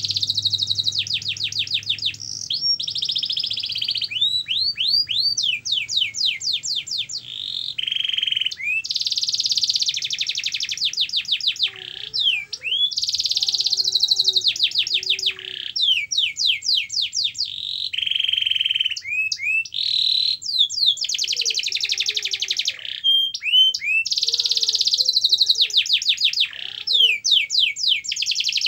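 Domestic canary singing steadily: long rolling trills of rapid repeated notes alternating with sweeping whistles, phrase after phrase with only short breaks.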